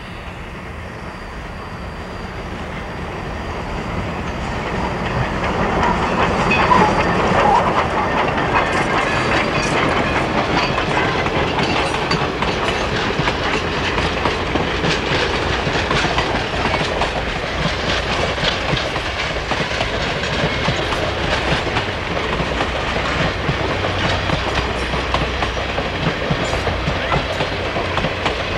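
Baldwin 2-8-2 steam locomotive and its passenger train passing close by: the sound grows louder over the first several seconds as the engine approaches, then holds steady as the coaches roll past with a clatter of wheels over rail joints.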